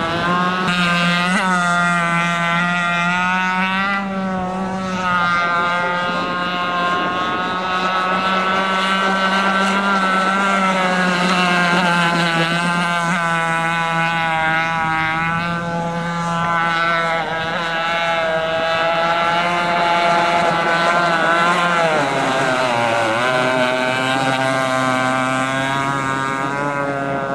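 Radio-controlled model racing boat running at speed, a steady high engine note that wavers in pitch as the boat turns. Near the end the note drops away briefly, then climbs again.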